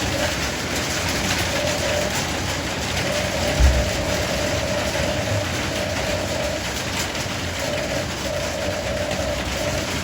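Small electric motors of a radio-controlled construction model whining on and off over a steady noisy background, with one low thump about three and a half seconds in.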